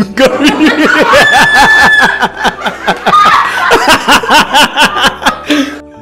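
Loud laughter, a rapid run of 'ha-ha' bursts going on throughout, with a few high held shrieks mixed in.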